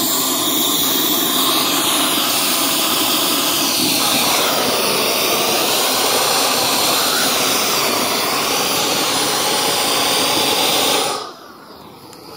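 Hose-fed gas torch, used as a flamethrower, blasting flame onto a pile of burning sticks with a loud, steady jet-like hiss. It shuts off abruptly about eleven seconds in.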